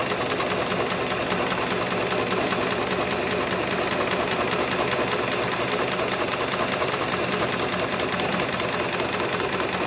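HIGHTEX 7273PLK automatic programmable pattern sewing machine stitching heavy military belt webbing: a fast, even patter of needle strokes that runs without pause, over a steady high whine.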